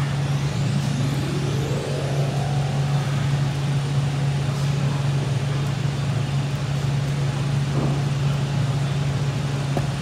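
A steady low machine hum over a background of room noise, with a faint rising whine about a second in.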